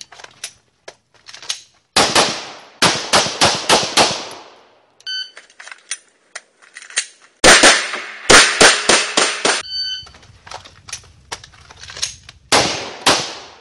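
Semi-automatic pistol fired in three quick strings of shots: about six, then about eight in rapid succession, then two or three near the end. A short electronic beep sounds before each string.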